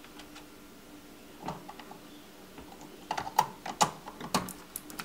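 Plastic clicks and knocks of drive cable connectors, a ribbon cable and a power plug, being pushed onto a Macintosh LC 475 logic board. There are a couple of light clicks about a second and a half in, then a quick run of sharper clicks from about three seconds in.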